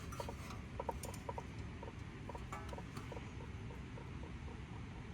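Faint, scattered light clicks and taps of a tool working a stuck part loose on a brake caliper. They come thickest in the first two seconds and more sparsely after that.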